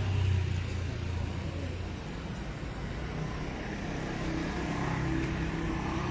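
Motor vehicle engine sound on a residential street: a low rumble, loudest in the first second, then another engine hum building toward the end.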